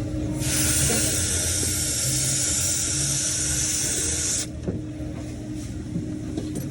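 A pressurised hiss that starts abruptly, holds steady for about four seconds and cuts off suddenly, over the steady hum of running refrigeration equipment.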